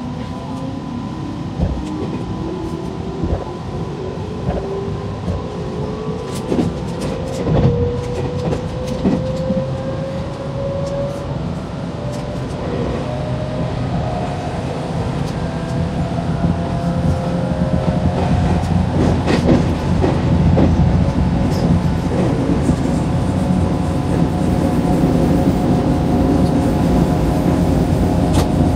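JR Nara Line electric train running, heard from the driver's cab: its motor whine rises steadily in pitch over the first half as it picks up speed, with scattered clicks of the wheels over rail joints and points and a running rumble that grows a little louder toward the end.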